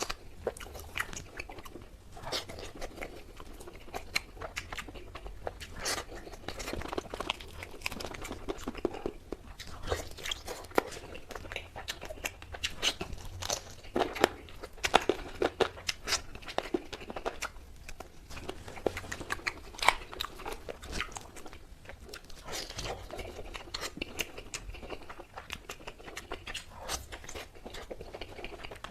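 A person biting and chewing tandoori chicken, with many irregular sharp clicks and wet mouth noises throughout.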